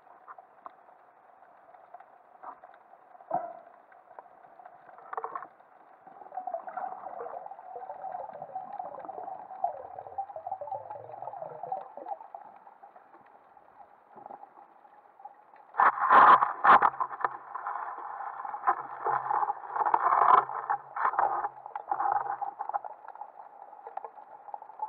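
Muffled underwater sound heard through a waterproof camera housing on a speargun: scattered clicks and knocks from the gun and the diver's movements, turning louder and busier about two-thirds in as the diver works close to the seabed.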